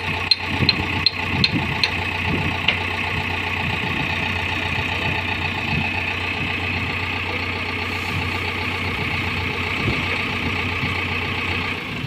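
JCB backhoe loader's diesel engine idling steadily, with several sharp metallic clicks in the first three seconds.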